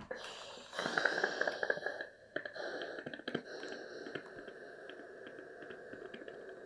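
Iron sliding along a folded fabric hem on an ironing board, with the fabric rustling as the edge is pressed up; loudest about a second in, then a quieter steady rubbing with a few light clicks.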